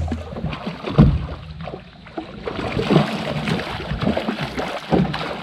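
Irregular knocks and bumps of people moving and handling gear in a jonboat, with a few louder knocks spaced a second or two apart.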